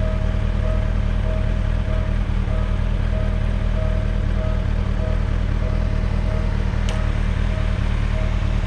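Railway level-crossing warning bell ringing in an even, repeating ding pattern, over a steady low engine rumble from an idling Kawasaki ZX-6R. One sharp click near the end.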